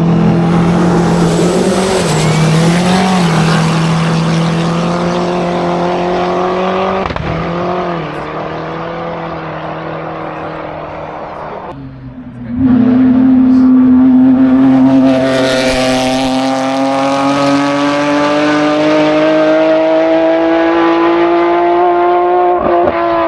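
Race car engine at high revs on a hillclimb run. It holds a steady pitch with brief dips about three and eight seconds in, fades a little, then comes back suddenly louder about twelve seconds in, its pitch climbing slowly from there on.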